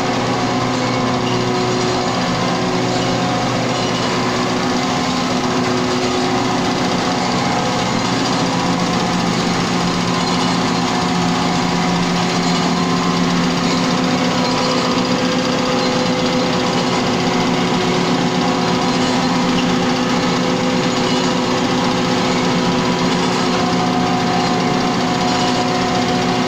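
Impact pulverizer grinding sawdust into powder, running steadily: loud, even machine noise with a steady hum.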